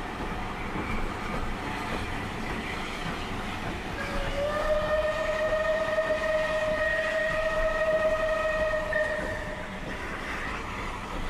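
A locomotive sounds one long warning blast of about five seconds on a single steady note, starting about four seconds in, over the rumble of a train running.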